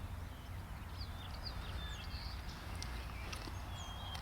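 Songbirds chirping and singing in short, scattered whistled phrases over a steady low rumble.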